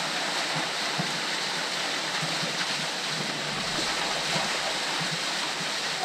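Small waterfall splashing and rushing steadily down into a narrow rock gorge.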